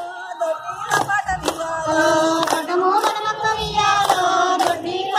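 A group of women singing a Telugu Bathukamma song in chorus, clapping their hands together in a steady rhythm about every half second to second.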